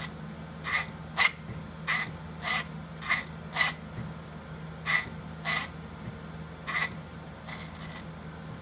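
GM LS V8 electronic drive-by-wire throttle body snapping its plate open and shut under its electric motor as the pedal is pressed, about ten short sharp actuations roughly twice a second, with a pause about four seconds in. A steady low hum runs underneath.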